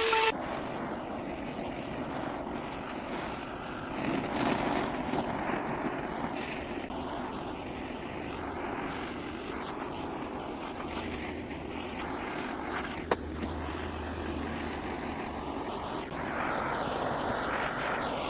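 Handheld power carving tool grinding into wood while texturing a carved beard: a steady, rough whirring noise. It swells about four seconds in and again near the end, with one sharp click about two-thirds of the way through.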